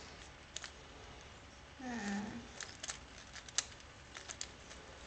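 Irregular, quick clicks of a 3x3 Rubik's cube being twisted, with a short vocal sound about two seconds in.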